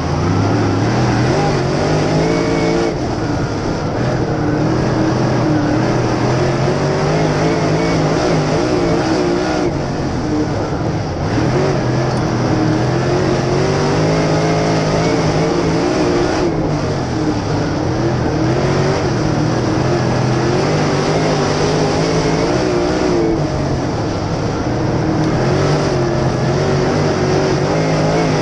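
Steel-block dirt late model's V8 engine at racing speed, heard from a camera mounted on the car, its pitch climbing and dropping several times as the throttle is worked, over steady wind and tyre noise.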